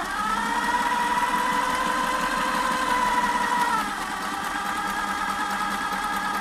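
Kenmore 1050 sewing machine stitching a straight seam through stretchy power mesh. The motor whines up to speed at the start, runs steadily, and drops a little in pitch about four seconds in as it slows.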